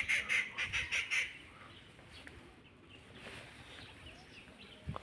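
A bird calling, a rapid series of short notes over about the first second.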